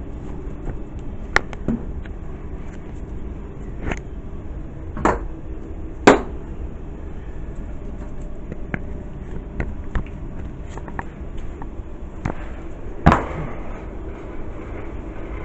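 Sharp metallic clinks and knocks of tools and hardware against the steel motor base and frame of an air handling unit, five distinct strikes with fainter ticks between, over a steady low machinery hum.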